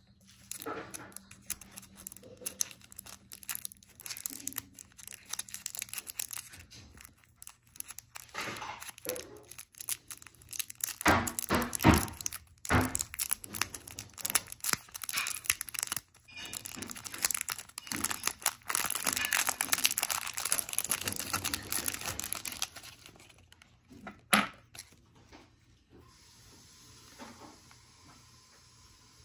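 Irregular crinkling, rustling and tearing handling noises, loudest in the middle, with a single sharp knock about two-thirds of the way through.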